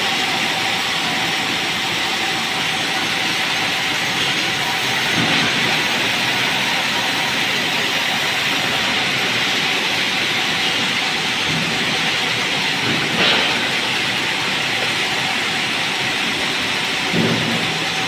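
Sawmill band saw running and cutting lengthwise through a merbau hardwood log, a steady loud hiss of the blade in the wood over a constant tone from the machine. A few brief knocks sound over it.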